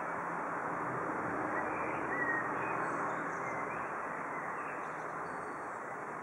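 Steady outdoor background rumble, like distant traffic, with a few faint bird chirps about two seconds in.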